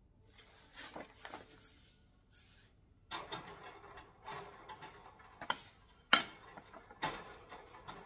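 Metal wire cage parts clicking and clattering as they are handled and fitted together, with a series of sharp knocks, the loudest about six seconds in.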